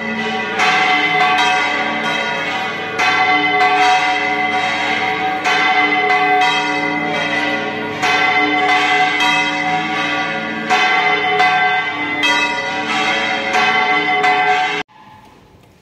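Church bells ringing, struck again every second or two, with the tones ringing on and overlapping. The ringing cuts off suddenly near the end.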